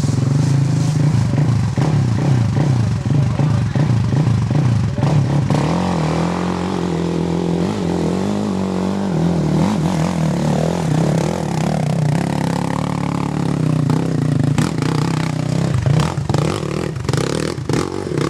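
Sport quad's engine running at low, fairly even revs, its pitch rising and falling a little as the rider works the throttle, with several clattering knocks near the end.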